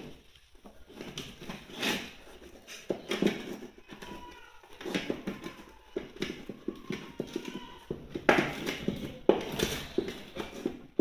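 Cooking spoon knocking and scraping against an aluminium pot as a stiff white mash is stirred and pressed, in irregular strokes that grow louder and quicker about eight seconds in.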